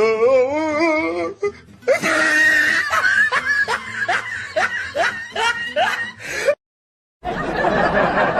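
Laughing sound effects played one after another: a wavering, trembling laugh, then a run of short rising "ha" laughs about two a second, then a short silent gap and a denser, noisier laugh.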